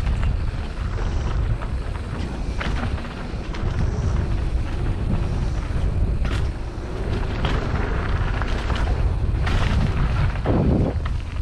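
Ragley Marley mountain bike being ridden over a dirt trail: a steady low rumble of wind on the microphone, with scattered sharp knocks and rattles from the bike over bumps, and a heavier jolt about ten seconds in.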